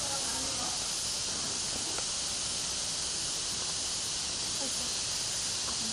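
Steady high-pitched hiss of outdoor forest background noise, with a few faint, distant voices.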